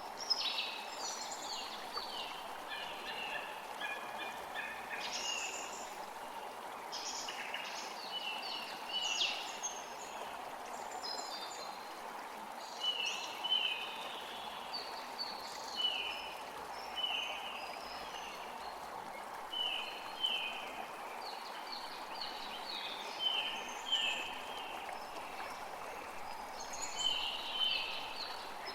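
Forest creek flowing steadily, with several songbirds chirping and singing over it, including a run of short, repeated falling notes in the middle.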